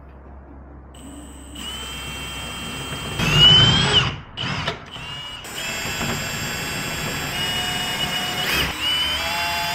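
Cordless drill whining in a few bursts, rising in pitch and loudest about three seconds in, then running steadily from about halfway, while rivet nuts are being fitted into a car door.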